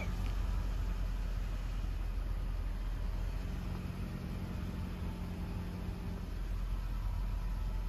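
Steady low rumble of a car's engine and tyres, heard from inside the cabin while it drives along, with a faint hum rising in the middle.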